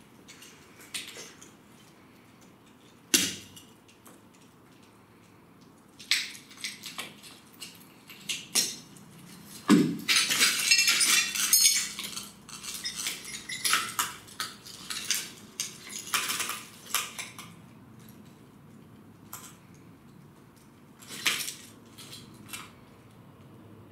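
Scattered clinks, knocks and crunching of broken ceramic tile and rubble being stepped on and shifted, busiest for a few seconds near the middle.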